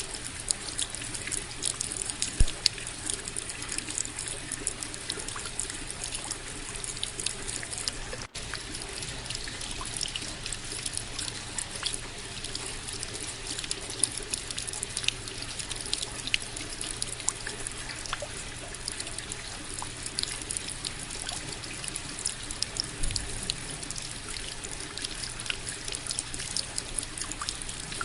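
Steady rain, a dense patter of drops with trickling, running water, cutting out for a split second about eight seconds in.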